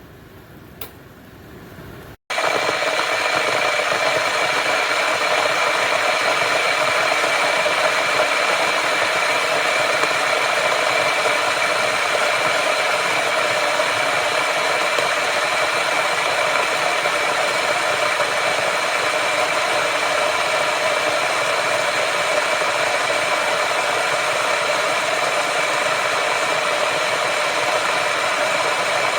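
1500 W borosilicate-glass electric kettle at a full rolling boil: a loud, steady rushing and rattling noise that starts abruptly about two seconds in, after a faint lead-in.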